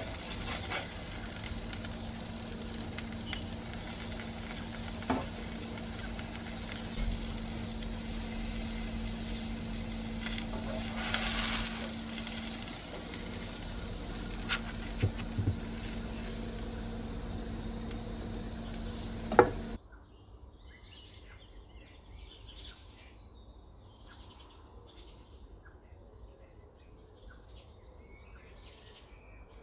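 A tortilla wrap frying on a flat non-stick griddle pan, a steady sizzle with a low hum and a few sharp clicks of the spatula against the pan, the loudest one about two thirds of the way in. The sizzle then cuts off abruptly, leaving a much quieter background with faint high chirps.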